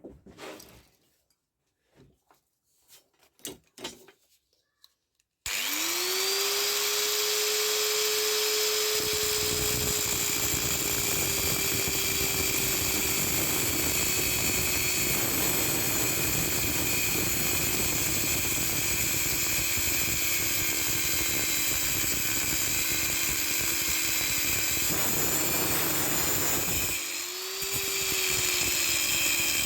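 A few light knocks, then a handheld power tool motor spins up about five seconds in and runs steadily under load, its pitch sagging slightly. Near the end it eases off briefly and spins back up.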